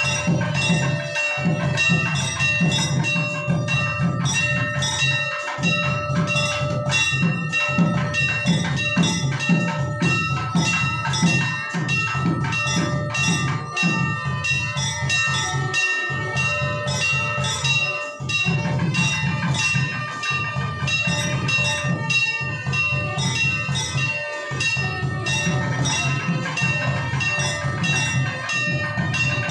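Temple bells clanging in fast, steady strokes during the harathi (lamp-waving) ritual, their ringing tones overlapping without pause, with a low, dense, drum-like beat underneath.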